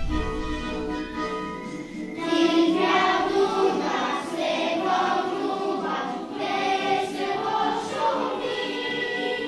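A group of children singing together over instrumental accompaniment. The voices come in about two seconds in after a short instrumental opening of steady held notes.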